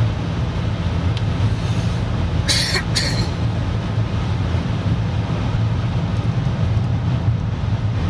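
Steady low rumble of road and engine noise inside a car cruising on a motorway. Two short hissing noises come about two and a half seconds in.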